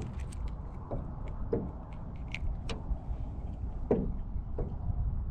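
Wind buffeting the microphone in a low, steady rumble, with scattered light clicks and a few soft knocks.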